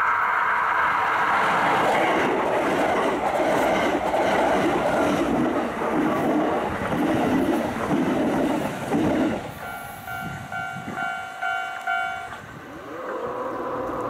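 Kintetsu limited express electric train passing at speed over a level crossing, its wheels clacking in a steady rhythm over the rail joints, with the crossing's warning bell ringing. Once the train has gone, about ten seconds in, the bell's pulsing tone stands out plainly, then stops a couple of seconds later.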